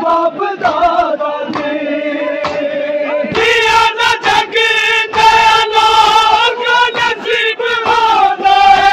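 Massed men's voices chanting a noha, a Shia lament, in long drawn-out notes, with the slaps of matam chest-beating among them. The chant grows louder and fuller about three and a half seconds in.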